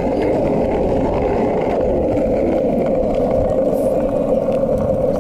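Skateboard wheels rolling over asphalt: a steady rumble.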